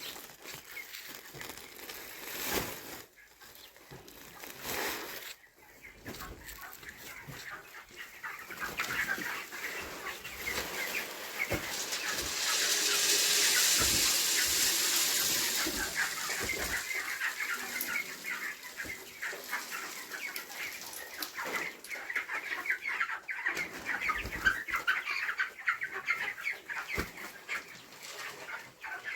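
A flock of broiler chickens clucking and chirping in many overlapping voices, with a louder hiss-like rush for a few seconds around the middle and a few knocks early on.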